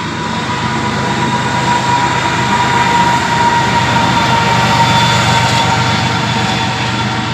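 Canadian Pacific freight train rolling past with a diesel locomotive placed mid-train: a low engine rumble under the steady noise of wheels on rails, with a steady high ringing tone. The sound swells a little toward the middle and eases near the end.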